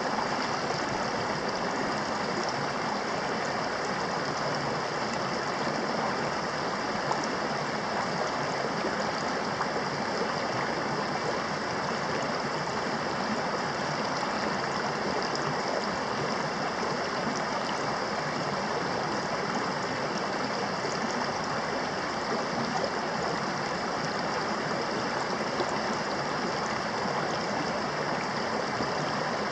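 Small rocky creek running over stones: a steady, unbroken sound of flowing water.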